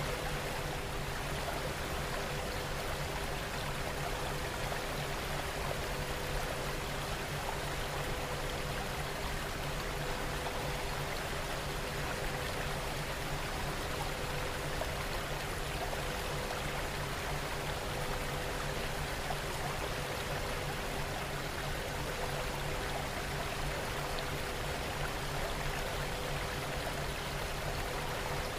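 A steady recording of rain, an even hiss of falling water that does not change, with a few faint steady hum tones beneath it.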